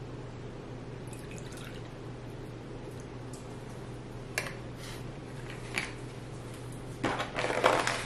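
Milk poured from a bottle into a ceramic bowl, a soft splashing trickle of liquid over a steady background hum. Two light knocks follow a few seconds later, then some rustling handling noise near the end.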